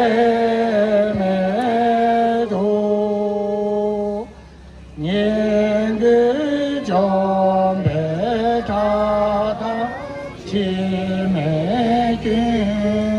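A group of voices chanting in unison, slow and melodic, in long held phrases, with a short break about four seconds in.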